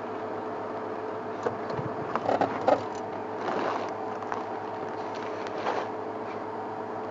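Steady hum of a safari game-drive vehicle's engine idling, with a cluster of sharp cracks and rustles about two seconds in and another brief rustle later.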